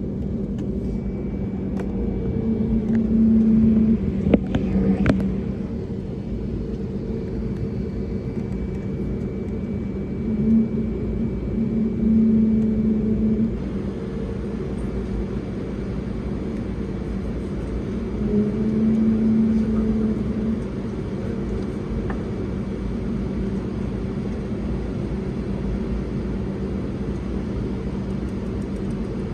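Airbus A320 airliner's jet engines running with a steady low rumble and hum, swelling louder a few times for a second or two. Two sharp clicks about five seconds in.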